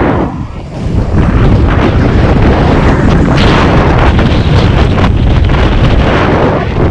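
Wind rushing over a helmet-mounted microphone and tyres running on dirt as a mountain bike descends a jump trail at speed; the noise drops briefly under a second in.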